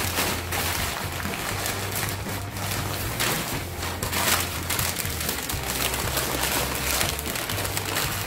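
Background music with a steady bass line, over irregular crinkling and rustling of a paper sheet being folded and crumpled by hand.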